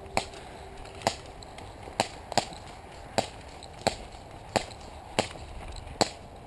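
Airsoft gun firing single shots, a sharp crack about every second, nine in all, two of them in quick succession.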